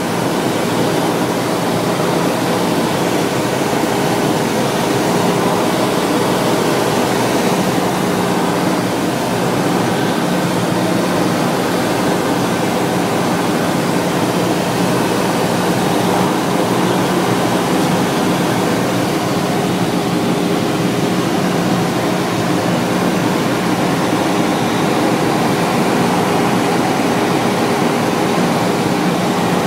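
Cessna 172SP's four-cylinder Lycoming IO-360 engine and two-bladed propeller running steadily in flight, heard inside the cabin as a loud, even drone with a low hum under rushing air.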